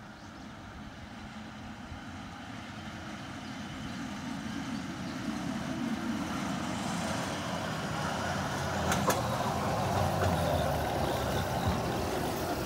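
A CSX Chevrolet Silverado 3500HD hi-rail pickup truck running along the rails toward the listener, growing steadily louder as it approaches. There are a couple of sharp clicks about nine seconds in.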